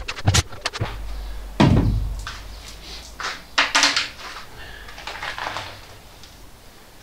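Tool handling on a van's bare steel load floor: quick clicks and rattles from a plastic drill-bit case, then one heavy thump about one and a half seconds in as a cordless drill is set down. A few short scrapes and knocks follow at the rear door sill trim.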